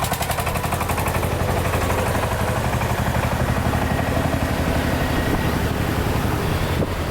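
A vehicle engine running steadily at low revs, with a fast rattle over it that fades out about a second in.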